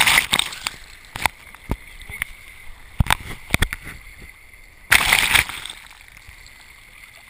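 Sea water rushing and splashing against a GoPro camera as it dips into the wave alongside a sailing yacht's hull, with sharp knocks of water striking the camera. There are loud bursts of splashing at the start and again about five seconds in.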